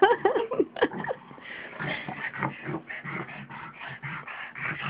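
A pug and a small mixed-breed dog playing rough, with quick high whines and yips in about the first second, then a quieter run of rough play noises and rustling bedding.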